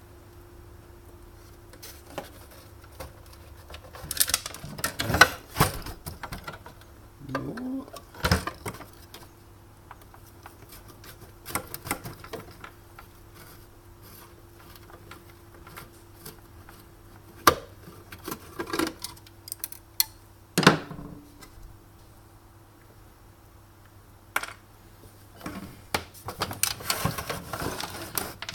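Irregular clicks, knocks and short clatters of plastic and metal parts being handled during the teardown of a Sunbeam Cafe Ristretto espresso machine, over a faint steady hum.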